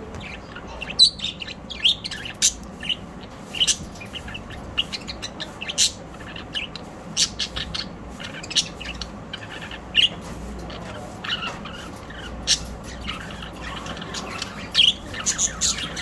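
Budgerigars chirping and chattering: short, high, sharp calls that come irregularly, often several a second.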